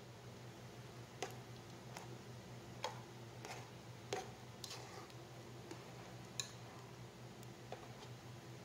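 Thick peanut kare-kare sauce simmering in a pot, with short, irregular pops of bubbles breaking at the surface over a low steady hum.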